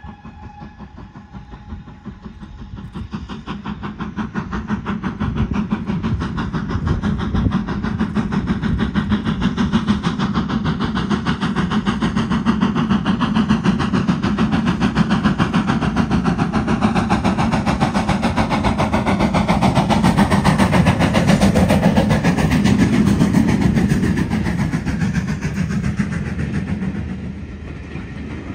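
BR Standard Class 4 2-6-4 tank locomotive 80078 working a train under steam, its rapid exhaust beats growing louder as it approaches and passes close by. They are loudest about three quarters of the way through, then fall away as the coaches roll past near the end.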